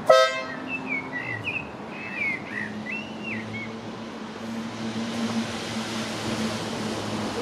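A short, loud toot from a miniature railway locomotive, then a bird chirping quickly for a few seconds. Under it a steady low hum from the locomotive that builds near the end as the train starts to move off.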